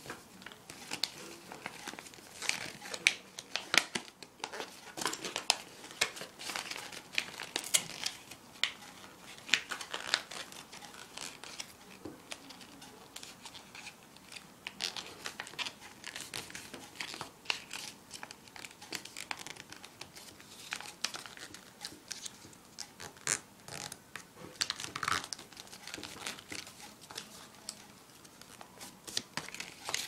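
A sheet of paper being folded and creased by hand: irregular crinkling and rustling, with many short sharp crackles as the folds are pressed down.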